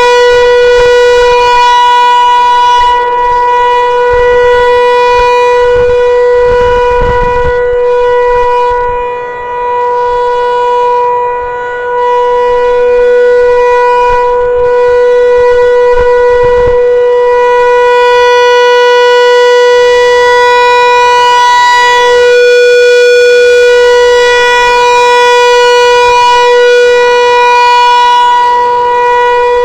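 Federal Signal 508 electromechanical outdoor warning siren sounding a steady Full Alert tone: one loud held pitch that does not rise or fall, its loudness dipping briefly now and then.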